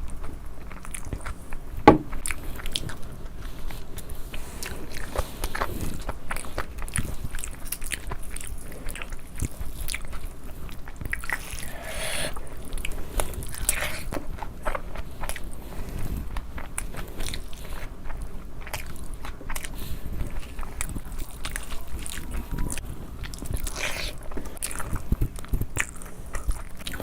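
Close-miked eating: steady chewing and biting with frequent small wet clicks and crunches, one sharper click about two seconds in.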